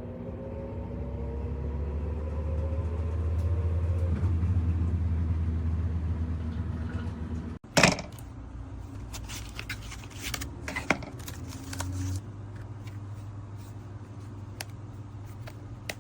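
A low engine rumble that swells and then eases off before cutting out abruptly. A sharp knock follows, then scattered clicks over a quieter low hum.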